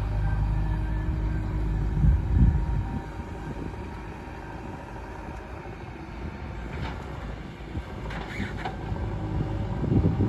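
JCB 3DX backhoe loader's diesel engine running under varying load, swelling louder about two seconds in and again near the end. A few light clanks come in between.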